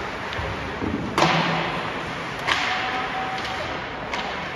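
Sharp cracks of ice hockey sticks and puck striking during play, echoing around the rink: three in all, the loudest about a second in, another at about two and a half seconds, a smaller one near the end.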